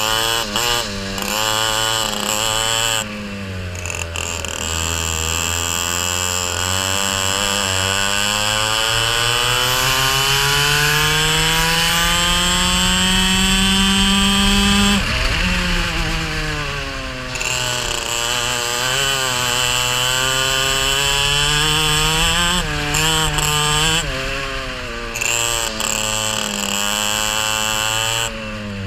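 Racing kart engine heard onboard at high revs, its pitch climbing steadily for about ten seconds down a straight, then dropping sharply about halfway through as the driver lifts off. It then rises and falls through the following corners.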